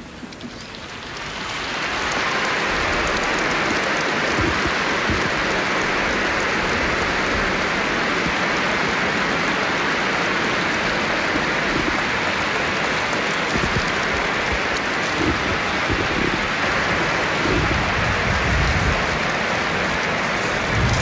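Large stadium crowd applauding, swelling in over the first two seconds and then holding steady.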